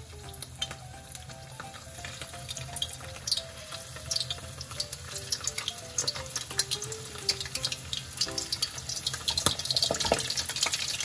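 Prawn spring rolls deep-frying in hot vegetable oil, a dense crackling sizzle that grows louder and busier toward the end as more rolls go into the oil. A simple background melody plays under it.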